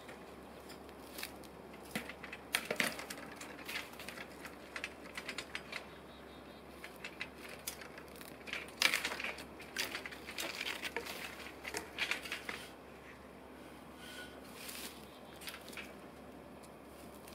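Dry weeds and leaf litter crackling and crunching, with scattered light clicks and knocks, as a metal ladder tree stand is handled and raised against a tree. The loudest bunch of crackles comes about halfway through.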